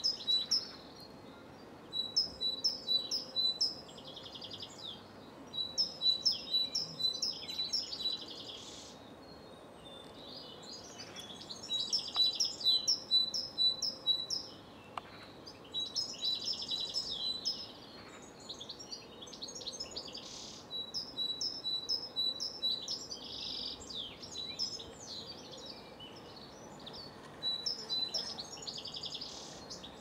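Great tit singing: bouts of rapidly repeated high, ringing notes, each lasting a few seconds, with short pauses between.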